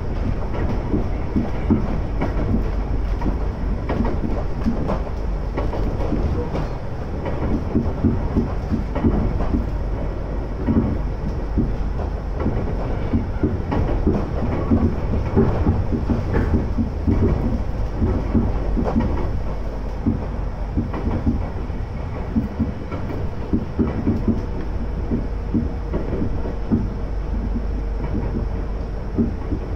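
Running noise of an Iga Railway electric train (converted ex-Tokyu cars) heard from inside the carriage: a steady rumble with wheels clattering over the rail joints. A faint steady whine comes in past the middle.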